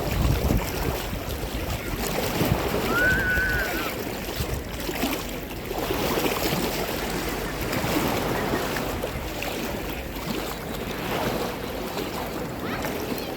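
Sea water washing and lapping at the shore, with wind buffeting the microphone. A brief high call sounds about three seconds in.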